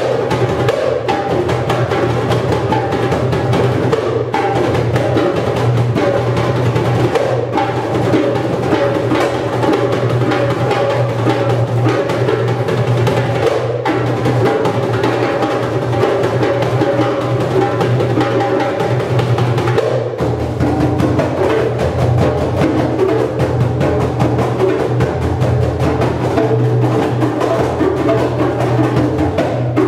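An ensemble of goblet hand drums playing a dense, steady rhythm together.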